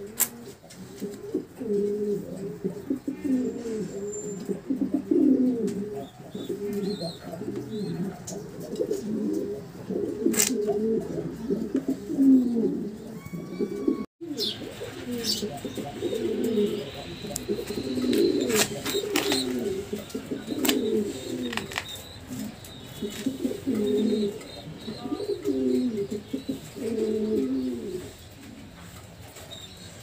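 Domestic pigeons cooing over and over in low, rolling calls, with a short dropout about fourteen seconds in and a few sharp clicks.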